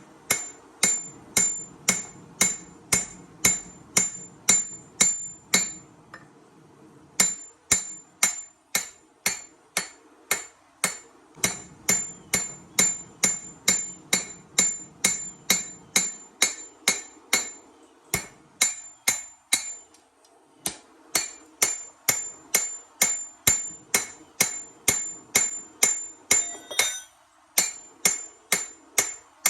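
Hand hammer striking hot steel on an anvil, forging a chef knife blade: a steady run of ringing blows about two a second, with a couple of short pauses.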